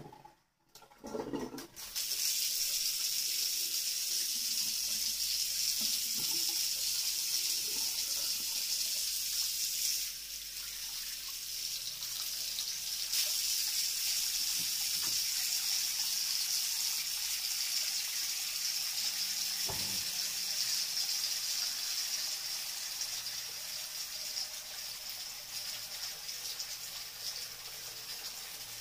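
Tap water running steadily from a washbasin faucet, splashing into the sink and over a kitten being rinsed under the stream. The steady hiss starts about two seconds in and eases slightly about ten seconds in.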